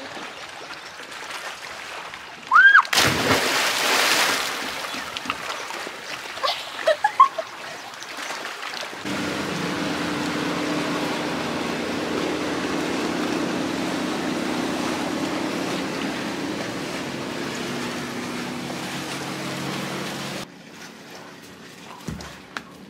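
A person jumping into lake water: a short high squeal, then a loud splash about three seconds in. Later comes a steady hum with several held low tones that runs for about eleven seconds and then cuts off suddenly.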